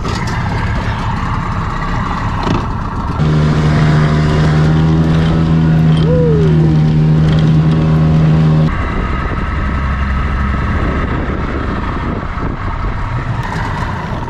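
Small boat's outboard motor running. It gets louder with a steady engine note for about five seconds from around three seconds in, then eases back to a lower running sound. A short falling whistle sounds about six seconds in.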